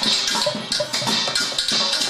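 Percussion music: fast, dense drum and wood-block strikes under a steady rattle of shakers.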